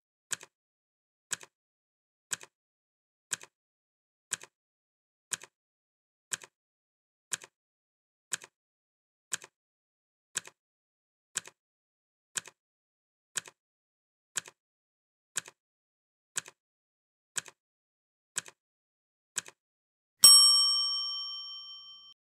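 Countdown timer sound effect: a short clock tick once a second, about twenty ticks in all, each with a faint second click. It ends with a single bell ding that rings out and fades over about two seconds, signalling that time is up.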